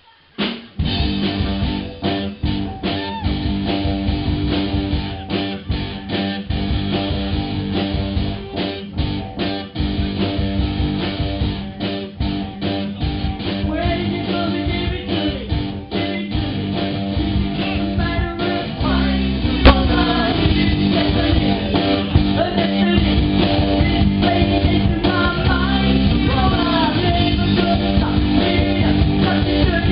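Live rock band with electric guitar and bass starts playing abruptly, with a voice singing over it from about halfway.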